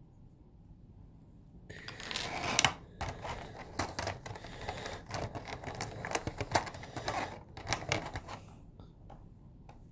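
Small plastic parts of an S.H.Figuarts action figure being handled and pulled off by hand: a run of clicks, taps and plastic rustling that starts about two seconds in and stops shortly before the end.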